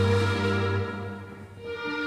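Instrumental music of long held notes. The notes die away a little past the middle, and new ones come in near the end.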